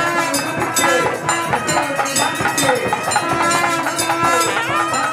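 Temple bells ringing in a fast, even rhythm, mixed with voices.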